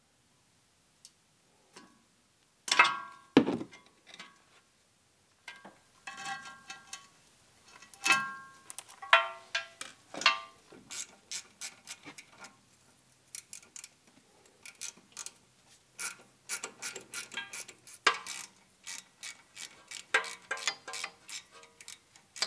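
Hand ratchet clicking in short quick runs as it turns out the 8 mm bolts holding the ABS sensor at the steering knuckle. Two loud knocks about three seconds in, and ringing metal clinks of tools and parts, come before the ratcheting.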